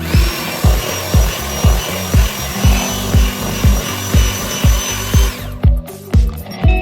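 Electric mixer motor running with a steady high whine, mixing the cheesecake filling, for about five seconds and then winding down, over background music with a steady beat of about two thumps a second.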